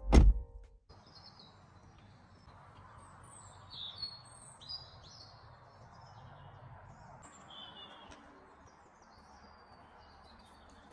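Songbirds chirping and singing in woodland, many short high chirps and trills over a soft steady background hiss. A brief loud thump right at the start.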